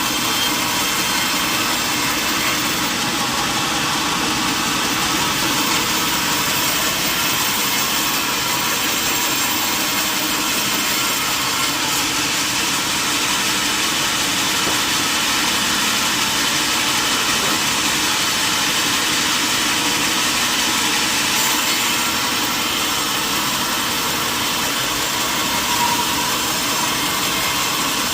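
Sawmill saw and machinery running with a steady, even noise, with no pauses or changes.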